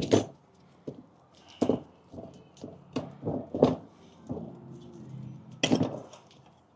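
Irregular knocks and clicks of hand tools and metal brake parts being worked loose on a truck's rear brake assembly, about six sharp strikes with pauses between them.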